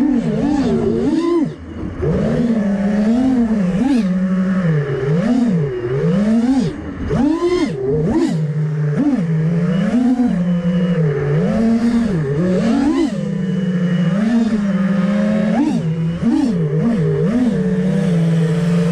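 FPV freestyle quadcopter's four brushless motors (T-Motor F40 III, 2400KV) heard from the onboard camera, their whine swooping up and down in pitch over and over as the throttle is worked.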